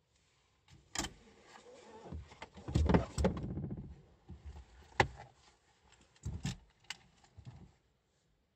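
Handling noises inside a parked car with the engine off: scattered clicks and knocks with rustling between them, the loudest a clatter about three seconds in and a sharp click about five seconds in.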